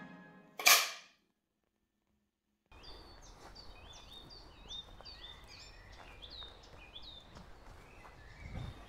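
A film clapperboard snapped shut once: a sharp clack with a short ring. After a brief silence, birds sing repeated chirping phrases over outdoor ambience, with footsteps coming in near the end.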